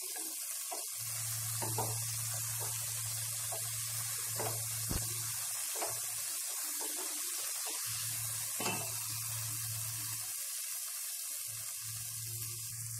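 Diced raw papaya sizzling as it sautés in an oily onion-tomato masala, a steady hiss, with a spatula scraping and knocking against the pan now and then. A low steady hum runs underneath and drops out twice.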